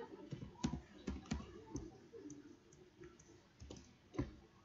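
Computer keyboard keys being pressed one at a time in irregular, unhurried keystrokes while text is typed. The clicks come in a few quick presses, then a pause, then a couple more near the end.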